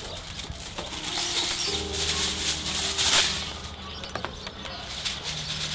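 Crackling and rustling with scattered sharp clicks, over soft background music with a few held low notes.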